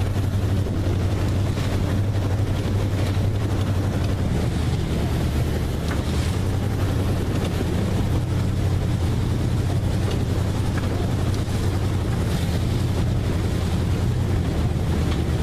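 Swamp buggy engine running steadily under way, a constant low drone, with wind buffeting the microphone.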